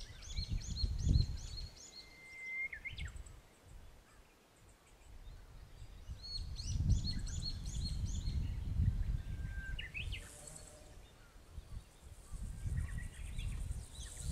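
Wind gusting against the microphone, with birds singing over it: runs of quick, high repeated notes, and twice a long held whistle that ends in a quick upward flick.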